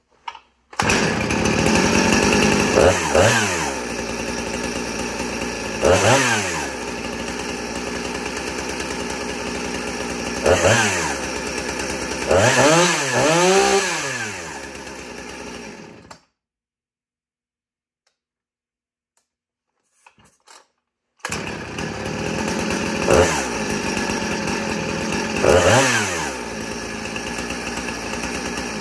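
Husqvarna 455 Rancher two-stroke chainsaw running at idle and being revved briefly about five times, each rev rising and falling back to idle. It cuts off abruptly about 16 s in, then runs again about five seconds later with two more short revs.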